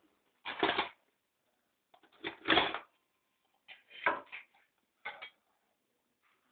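A spoon scraping and knocking against the inside of a metal saucepan as it stirs, in four short bouts, the loudest about two and a half seconds in.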